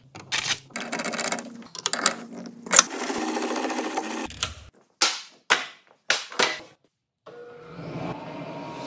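Quick metallic clicks and rattles as a router bit is fitted into a router table's collet and the router lift is cranked with its handle. Near the end a router starts up and runs steadily with a hum.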